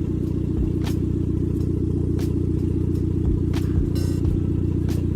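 A vehicle engine idling steadily, with a regular sharp click about every two-thirds of a second.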